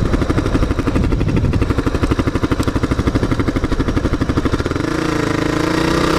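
Motorcycle engine running while riding, with a rapid, even pulse. About three-quarters of the way in the note turns smoother and its pitch starts slowly rising.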